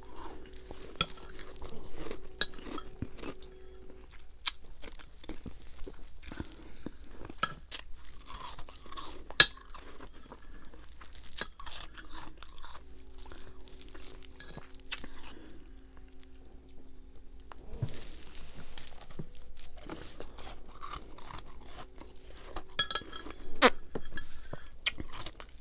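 A person biting and chewing freezer frost and ice chunks: repeated crisp crunching and cracking, with occasional clinks of a container. One sharp crack about nine seconds in is the loudest.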